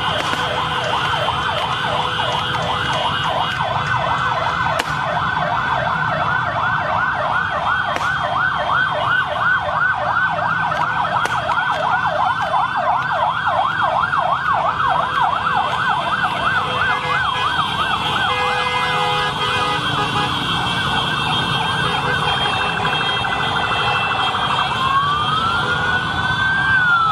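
Police vehicle sirens sounding together for a convoy flag-off: a fast warbling yelp, about three pitch swings a second, running steadily, giving way near the end to a slower rising-and-falling wail.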